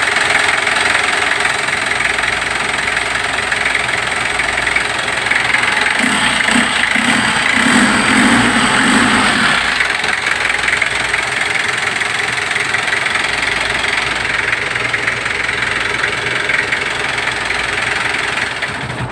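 Freshly overhauled Kia JT 3.0 four-cylinder diesel engine, with a new cylinder head, running steadily just after a cold start.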